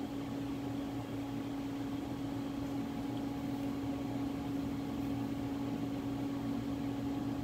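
Steady machine hum with a fan-like hiss, from the Haas CNC lathe standing powered up with its spindle stopped.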